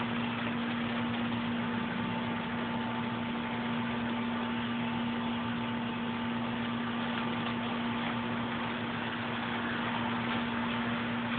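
A steady machine hum, a constant low tone over an even hiss, with no change in level.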